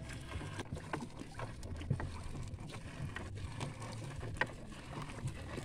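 Small wooden fishing boat at sea: scattered knocks and taps against the hull over a steady low rumble. Two sharper knocks come about two seconds and four and a half seconds in.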